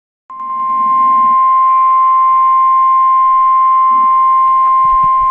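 NOAA Weather Radio 1050 Hz warning alarm tone: a single loud, steady, high-pitched tone that starts just after the beginning, the attention signal that comes before a broadcast emergency alert message.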